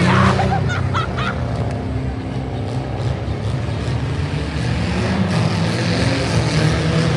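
Engines of demolition derby cars running steadily, with a few short high-pitched calls in the first second or so.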